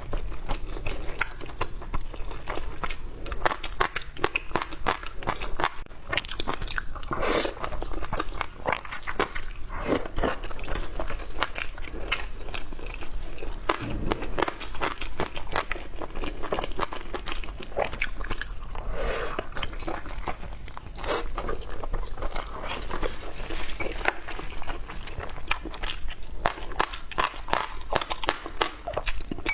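A person biting and chewing crunchy food close to the microphone, a continuous run of crisp crunches and smacks.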